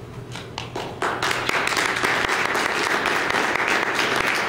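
Audience applauding: a few scattered claps, then full applause from about a second in.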